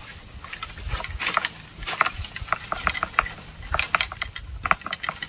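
Steady high-pitched drone of insects, overlaid from about a second in by irregular crackling and rustling of leaves and twigs as a long bamboo pole with a catching bag is jabbed into a weaver ant nest in the tree canopy; the crackles come thicker near the end.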